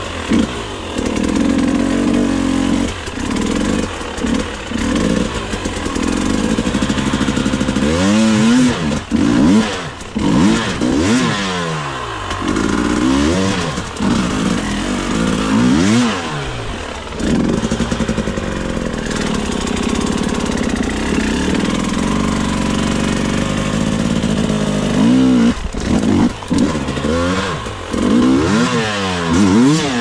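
Enduro dirt bike engine running steadily, then revved up and down repeatedly from about eight seconds in, settling back to a steady run, and revved again several times near the end as the bike is worked through rough ground.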